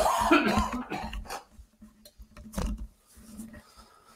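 A man coughing: a fit of coughs at the start, then a single cough about two and a half seconds in and a few weaker ones after it. A cough from a slight head cold, as he puts it himself.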